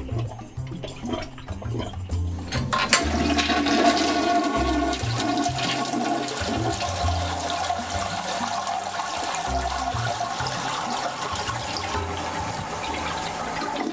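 A toilet flushing: the rush of water starts suddenly about three seconds in and carries on steadily, over a low, stepping bassline of background music.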